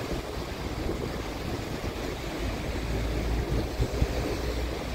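Wind gusting on the microphone, a steady low rumble that swells a little in the middle, over a hissing outdoor rush.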